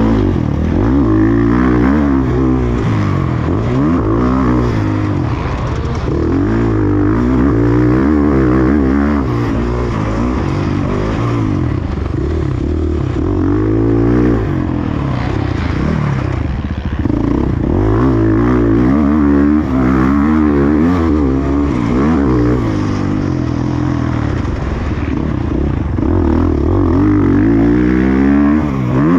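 Motocross bike engine revving hard and dropping back again and again, its pitch rising and falling with each burst of throttle.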